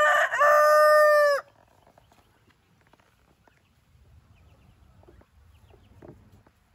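Lavender Orpington rooster crowing: the end of a cock-a-doodle-doo whose long held last note cuts off about a second and a half in, followed by faint light ticks.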